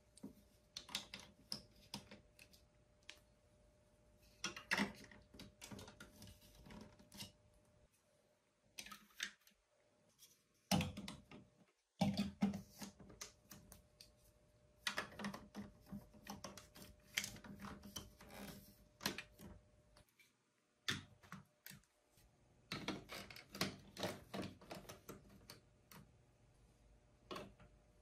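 Large plastic building blocks being handled, set in place and pressed together: clusters of small hard clicks and clacks, with a few short pauses.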